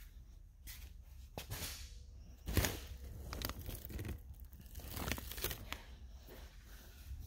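Cardboard boxes and plastic shrink wrap rustling, crinkling and scraping as they are handled, in several short bursts, the loudest about two and a half seconds in.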